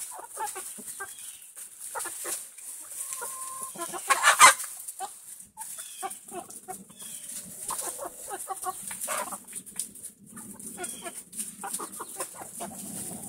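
Hens clucking softly in short, scattered calls while scratching and pecking through loose wood chips, with rustling from the chips. One sudden louder rustle comes about four seconds in.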